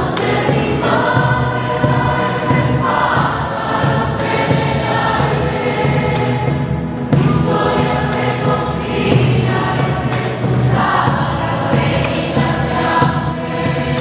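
Large mixed choir singing a Catholic hymn in harmony, accompanied by strummed acoustic guitars.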